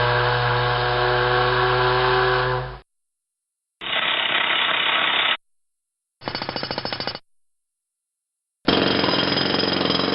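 A string of short construction-site sound effects, each cut off by silence. A steady machine drone runs for under three seconds, then come a brief noisy burst of a power tool, a second of rapid jackhammer-like hammering, and a last rattling burst near the end.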